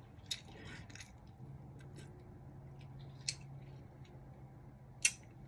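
Chewing a fruit roll-up wrapped around ice cream, with faint crunching and a few sharp crackles, the clearest about three seconds in and near the end. The cold ice cream has frozen the fruit leather crunchy.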